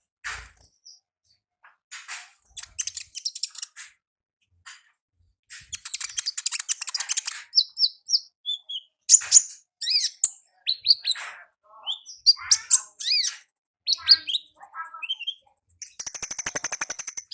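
High-pitched song of a konin ninja bird: quick series of thin chirps and short down-slurred notes, ending in a loud, fast rattling trill.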